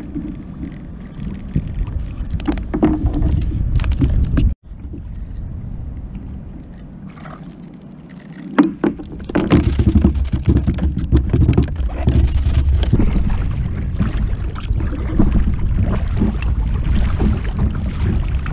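Wind rumbling on the microphone and small waves slapping against a kayak, with a few short knocks from handling the fishing rod and reel. The sound drops out for an instant about four and a half seconds in, and the wind and water grow louder from about nine seconds on.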